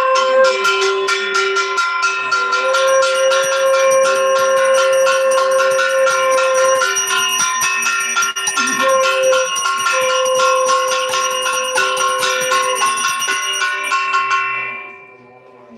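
Puja hand bell rung rapidly and continuously, its strikes coming several times a second over a steady ringing. A long held lower tone sounds beneath it, breaking off now and then. The ringing stops about fourteen seconds in.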